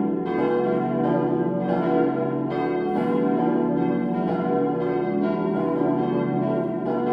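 Full peal of four 1922 cast-steel church bells tuned B, D, E and F-sharp, swinging and striking in an irregular overlapping jumble with the tones ringing on between strikes. The peal is unfavourably voiced: the low B bell stands out clearly, and the D bell has long struck mostly on one side only.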